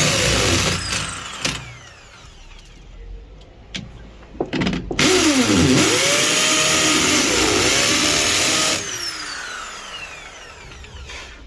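A power tool's motor running under load in two bursts, its pitch dipping and recovering again and again, and winding down with a falling whine after each burst stops.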